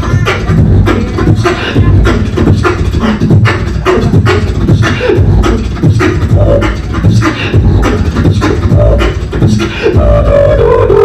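Human beatboxing through a handheld microphone: a fast run of vocal kick, snare and hi-hat sounds over deep bass, kept up without a break.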